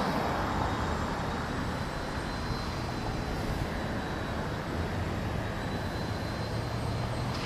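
Steady rumble of distant vehicle traffic, easing slightly in the first couple of seconds and then holding level.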